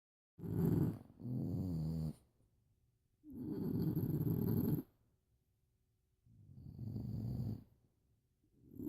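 Sleeping dog snoring: long snoring breaths, each about a second and a half, come roughly every two and a half seconds with silence between. The first breaks in two, its second half carrying a wavering pitched note.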